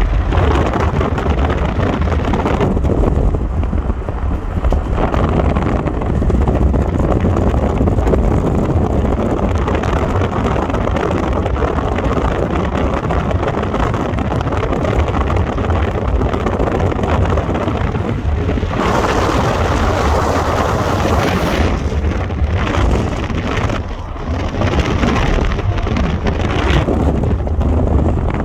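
Car driving, heard from on board: a steady low rumble of engine and tyres on the road with wind noise on the microphone. The hiss grows louder for a couple of seconds about two-thirds of the way through.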